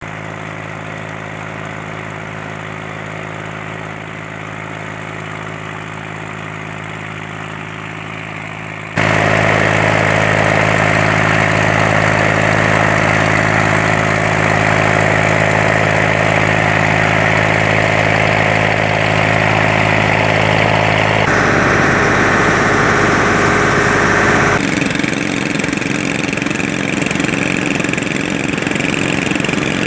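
A boat's engine running steadily with an even, low hum. Its loudness and tone change abruptly three times: a jump up about a third of the way through, then two more shifts in the last third.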